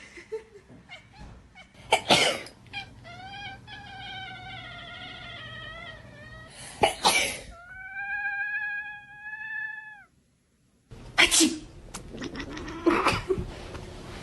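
A person sneezes several times in loud sudden bursts. After the sneezes a house cat answers with drawn-out calls, the first wavering and the second steadier and ending in a drop: the cat's reaction to hearing a human sneeze.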